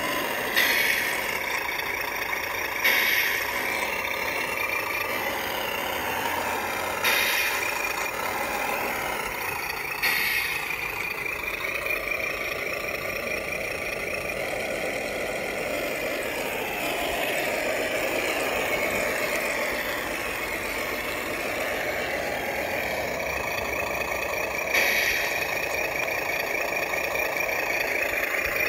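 Simulated truck engine sound from a WPL RC sound board played through a small speaker, running continuously and rising and falling in pitch with the throttle. Five brief louder bursts break in, the last of them near the end.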